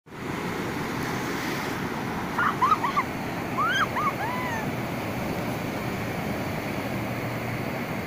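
Surf washing in on a shallow sandy beach, a steady rush of breaking waves and foam. Between about two and a half and four and a half seconds in, a handful of short high cries rise and fall over it.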